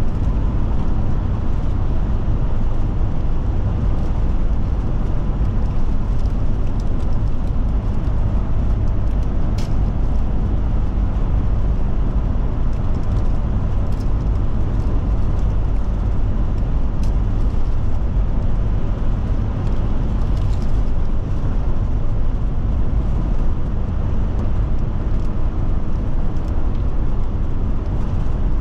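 Forest River Forester motorhome driving at road speed: a steady low rumble of engine and tyre noise, with a few faint clicks.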